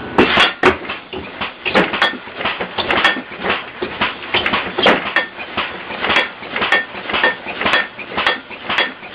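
A computer-controlled, air-compressor-powered alarm contraption clattering and banging, with about two sharp metallic strikes a second, like pots and pans being hit. The loudest strikes come right at the start.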